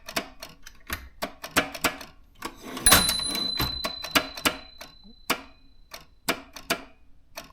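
Typing on a Consul manual typewriter: irregular type-bar strikes, about two or three a second. About three seconds in, a harder strike sets off a ringing tone, likely the typewriter's margin bell, which fades over a few seconds while the typing goes on.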